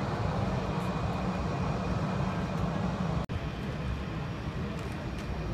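Steady low rumble and hiss of outdoor airfield ambience, with a brief dropout about three seconds in where the recording cuts.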